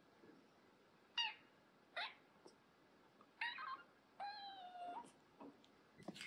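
Young kitten mewing repeatedly at an older cat in a high voice, complaining at it: three short mews, then a longer, slightly falling mew about four seconds in.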